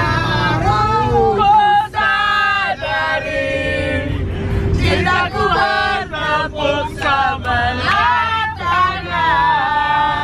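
Several people singing together inside a moving van, their voices over the steady low rumble of the engine and road.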